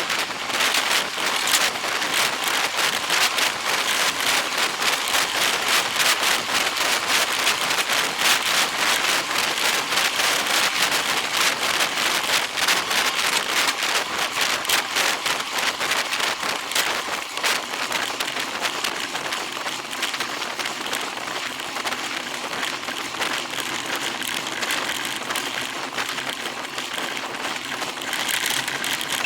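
Rain pattering steadily on a hard surface, a dense stream of tiny drop ticks, with a faint low hum joining in the last few seconds.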